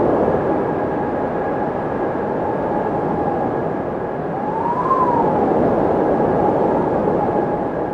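Windmill turning: a steady mechanical drone with a constant whine, and a tone that glides up and back down once, about five seconds in, as the rotation comes round.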